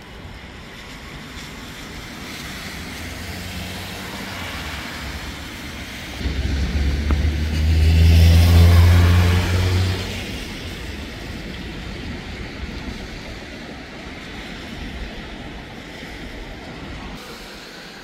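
Road vehicle passing close by with a low engine hum, swelling to its loudest about eight seconds in and falling in pitch as it goes away, over steady city traffic noise.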